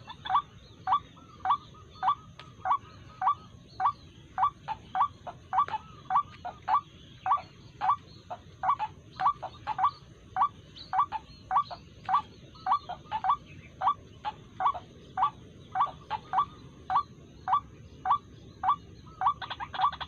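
White-breasted waterhen calling: a short rising note repeated about twice a second in a long steady series.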